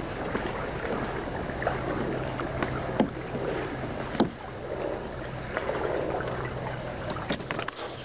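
Kayak being paddled on floodwater: water sloshing and splashing around the hull, with two sharp knocks about three and four seconds in and a cluster of clicks near the end.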